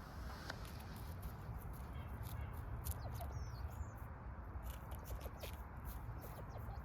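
Outdoor ambience: a steady low rumble with scattered short clicks and a few brief high bird chirps about halfway through.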